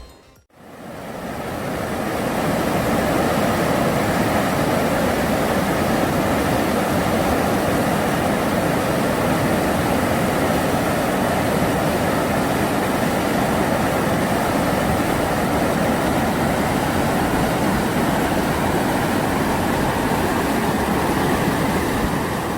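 Steady rush of water from a mountain valley stream, fading in just after the start and fading out near the end.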